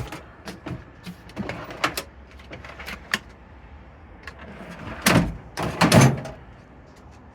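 A metal tool box being opened and gone through: light clicks and clinks, then two louder sliding knocks about five and six seconds in.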